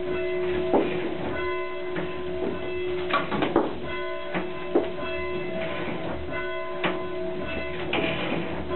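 Hand-rung church bell ringing on and on, struck about once a second, its deep hum and higher overtones sounding without a break. A few short sharp knocks come through over the ringing.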